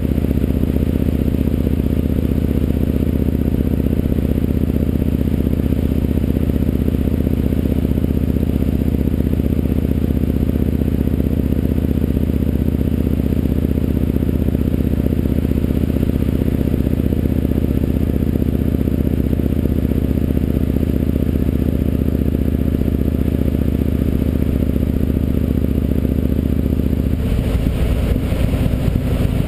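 Yamaha MT-01's big air-cooled V-twin engine running at steady revs while riding, a deep even drone. About 27 seconds in, the steady note breaks up and changes.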